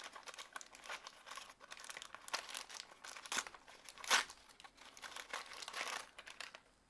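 Crinkly blind-bag wrapper torn open and crumpled by hand: an irregular run of rustles and crackles, with a louder tear about four seconds in, dying away near the end.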